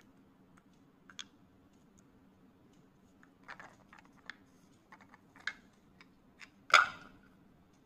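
Wooden cubes shifting and clicking against each other and the frame of a wooden tic-tac-toe box as it is handled, a scatter of light clicks and taps, with one louder sharp knock near the end.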